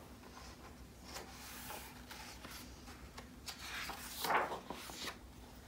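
Paper rustling as a page of a large hardcover picture book is handled and turned, with the loudest swish of the turning page about four seconds in.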